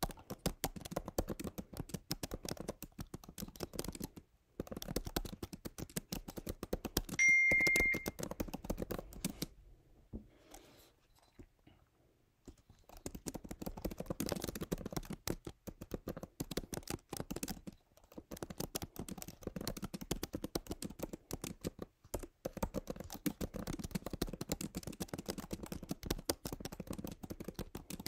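Typing on a computer keyboard: a quick, steady patter of key clicks with a few short pauses and a longer lull about ten seconds in. A short high beep sounds about seven seconds in.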